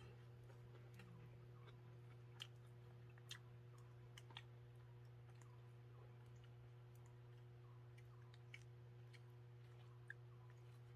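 Near silence over a steady low hum, broken by a few faint, scattered clicks.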